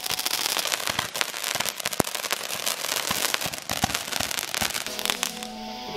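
Ground fountain firework spraying sparks: a steady hiss full of dense, rapid crackling pops.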